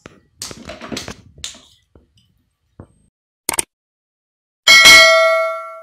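Subscribe-animation sound effects. A few short noisy transition sounds come in the first second and a half, then a quick double mouse click about three and a half seconds in. Near the end a bright notification-bell ding, the loudest sound, rings and fades away.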